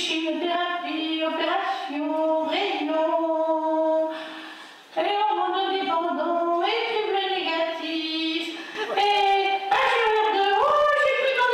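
A woman singing unaccompanied, a ventriloquist voicing her hand puppet, with long held notes and a brief break about four to five seconds in.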